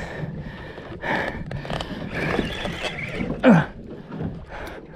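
A man's hard, strained breathing and grunting as he pulls against a big fish on a heavy spinning rod, with one loud falling groan about three and a half seconds in.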